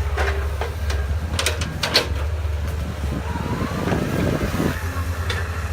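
A heavy machine's engine running steadily with a low rumble, with a few sharp knocks about one and a half to two seconds in.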